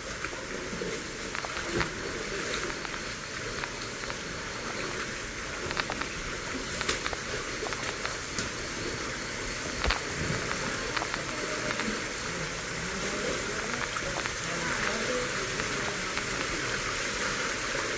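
Steady rushing of river water through a rocky gorge, with a few short splashes and knocks from wading feet.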